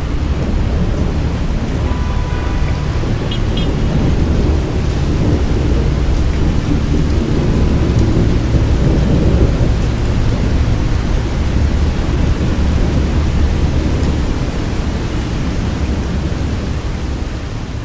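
Steady heavy rain with a deep, low rumble of thunder underneath, swelling slightly midway.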